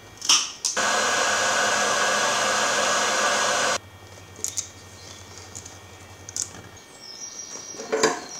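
A sharp snip as rubber fuel hose is cut with cutters. Then a steady, loud blowing hiss that starts and stops abruptly and lasts about three seconds. Then a few small metallic clicks as the fuel line is fitted to the tap with a spanner.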